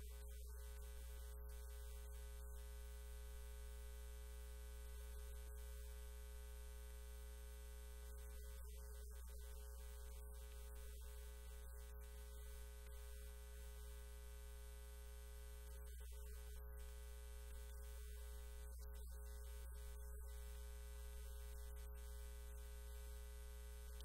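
A steady low electrical hum with faint steady tones above it.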